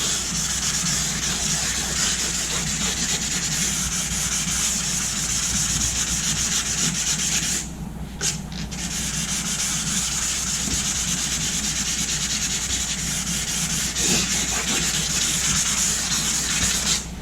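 Wet sandpaper rubbing over fresh automotive paint during color sanding: a continuous, even scrubbing that pauses briefly about eight seconds in, resumes, and stops near the end.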